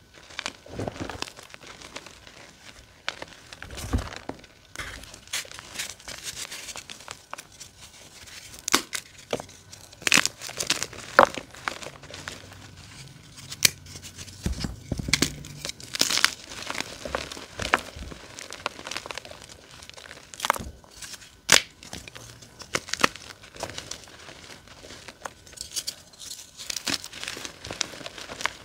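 Blocks of dyed gym chalk crushed and crumbled by hand: a gritty crumbling of powder broken by irregular sharp snaps and crunches as pieces break apart.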